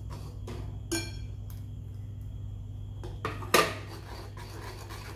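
Steel spoon stirring a thick sauce in an aluminium pan, with scattered light scrapes and clinks against the pan. There is a ringing clink about a second in and a sharper knock about three and a half seconds in, over a low steady hum.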